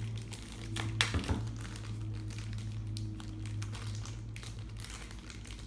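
A package being opened by hand: crinkling packaging with scattered clicks and taps, and a sharper click about a second in, over a steady low hum.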